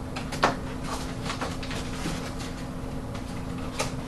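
Handling of a foam RC jet's fuselage and canopy: a sharp click about half a second in as the magnet-held canopy is fitted, then light rustling and a smaller click near the end, over a low steady hum.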